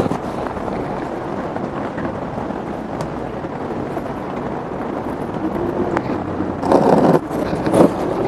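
Steady outdoor background rumble with a few faint clicks, and a brief louder noise about seven seconds in.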